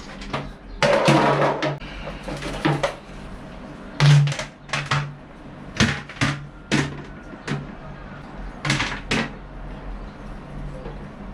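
Plastic toilet seat and lid being lifted off the bowl and handled: a rattling clatter about a second in, then a string of separate sharp plastic knocks, with a steady low hum underneath.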